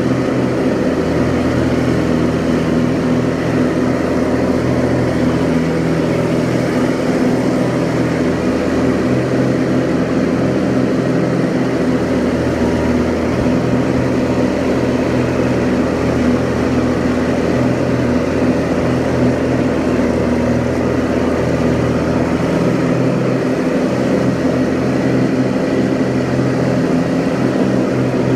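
Kubota G6200H diesel garden tractor running steadily under load, with its mower deck cutting tall grass.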